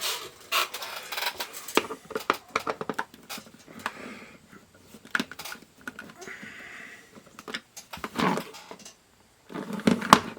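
Irregular clicks, taps and scrapes of a screwdriver and the plastic case of a digital multimeter being handled on a workbench, as a Phillips screwdriver is fitted to the case screws. A couple of short mumbled sounds come near the end.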